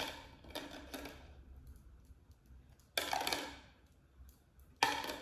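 Parts being handled and fitted into place: a few sharp clattering knocks, the loudest about three seconds in and again near the end.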